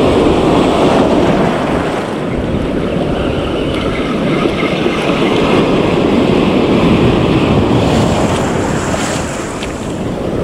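Surf breaking and washing over a shallow coral reef flat, with wind buffeting the microphone.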